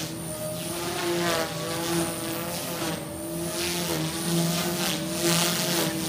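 OXY 2 Pro 215 electric RC helicopter in flight: its 215 mm main rotor and Lynx brushless motor make a steady buzzing hum with a thin high whine above it, at a governed head speed of about 4,000 rpm. The pitch wavers slightly and the sound swells in loudness in the second half as the helicopter manoeuvres.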